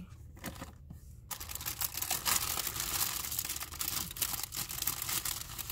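Clear plastic cellophane bag crinkling and rustling as it is handled, starting about a second in, with many quick crackles.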